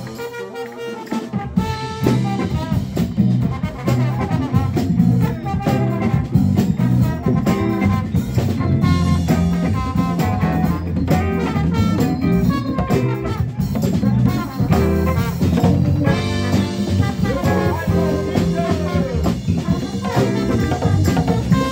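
Live band playing an upbeat number: a horn section of saxophones and trumpet over drum kit, bass guitar and hand-played congas. The bass and drums drop out for about a second near the start, then the full band comes back in.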